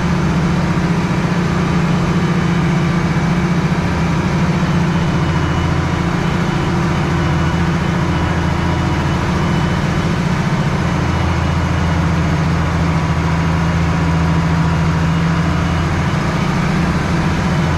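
International 1486 tractor's diesel engine running steadily under load while pulling through a creek crossing.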